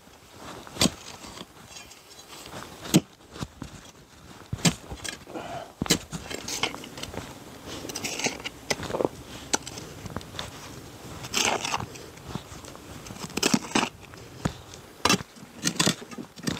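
Digging with a short hand tool in soil: irregular sharp strikes about every second or two, with gritty scraping and crunching as dirt and small stones are loosened and pulled out of the hole.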